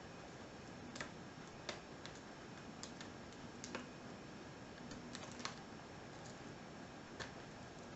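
Light, irregular metallic clicks of a lock pick and tension wrench working the pin stacks inside a Sargent mortise cylinder during single pin picking, about ten clicks spread unevenly over a faint steady hiss.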